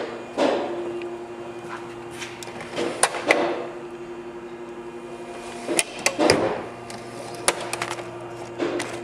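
Metal tool chest drawers being slid open and shut: sharp clicks and knocks, each followed by a short rattle of the drawer slides and the tools inside, several times over a steady low hum.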